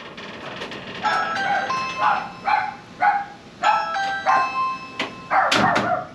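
A dog barking repeatedly, about twice a second, while a Ring video doorbell's electronic chime sounds twice, about a second in and again near four seconds, as its button is pressed.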